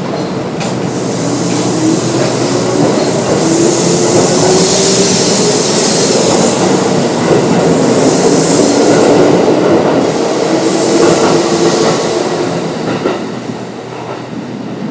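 Kintetsu 9200 series electric train with field-chopper-controlled DC traction motors, running and heard from on board: wheel and rail noise under a motor whine that rises in pitch for a few seconds and then holds steady. The sound grows quieter over the last few seconds.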